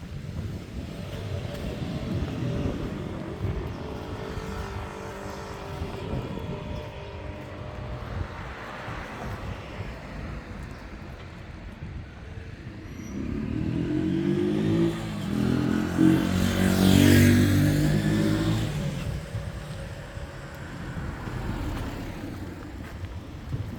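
Street traffic: a motor vehicle's engine grows louder, passes close by with a falling pitch, and fades, loudest a little past the middle. Fainter traffic sounds earlier on.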